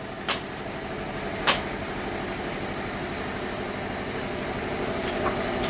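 Bandsaw sawmill machine running with a steady hum, with two sharp knocks in the first second and a half.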